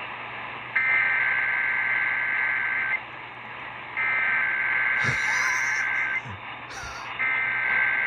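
Emergency Alert System SAME header: three bursts of harsh two-tone digital data squawk, each about two seconds long with about a second's pause between them. It comes over AM broadcast radio through a small portable radio's speaker and marks the start of an EAS test.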